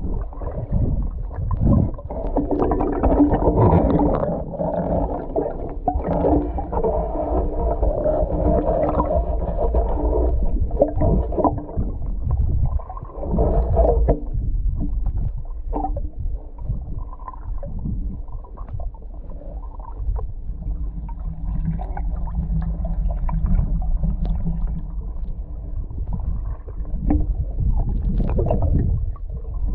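Water sloshing and churning around a person wading chest-deep, heard from a camera under the surface: a muffled, low rumble with almost nothing high-pitched. It is busier in the first half and calmer after about fourteen seconds.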